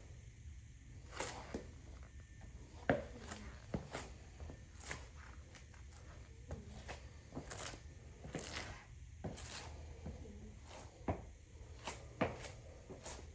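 Irregular light clicks and rustles of objects being handled, over a low steady hum.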